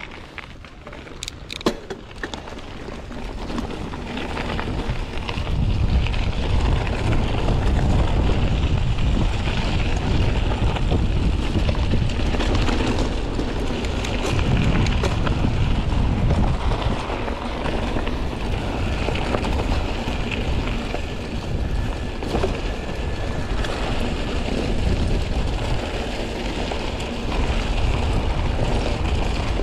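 Wind rushing and buffeting over the microphone during an off-road mountain bike ride, a steady low rumble. A few sharp clicks come a second or two in, then the rushing builds over the next few seconds and holds.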